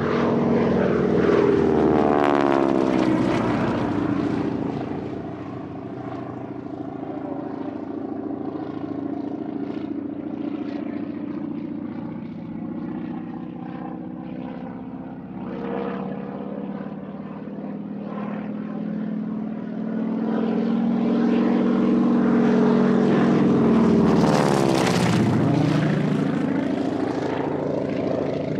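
Propeller airplane engine droning steadily. It swells twice as the plane passes, once near the start and again about three-quarters of the way through, with the engine pitch sweeping during each pass. It cuts off suddenly at the end.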